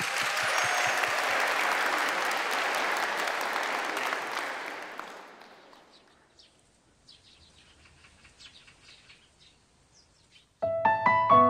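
Audience applauding, fading out after about five seconds. Then faint bird chirps, and just before the end a keyboard starts playing slow held chords.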